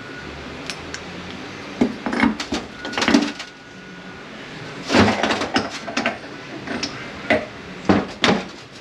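Metal parts of an 8L90 automatic transmission's geartrain, bearings and gears, clinking and knocking as they are worked loose, lifted out and set down. The knocks come at irregular intervals, with the loudest clusters about two, three, five and eight seconds in.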